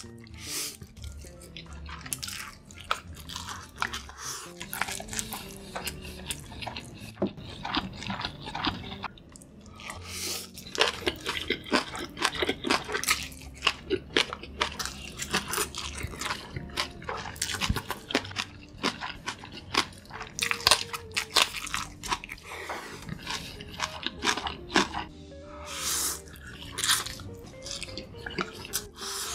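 Close-miked, mukbang-style eating: loud wet slurping and chewing of saucy noodles, with sharp mouth clicks and crunchy bites, over background music.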